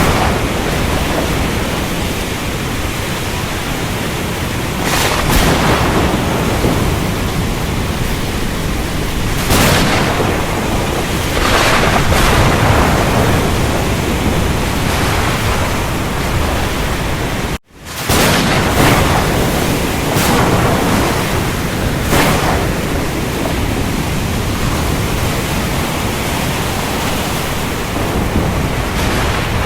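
Thunderstorm recording: heavy rain hissing steadily, with rumbles of thunder swelling up several times. The sound cuts out for an instant about two-thirds of the way through, then resumes.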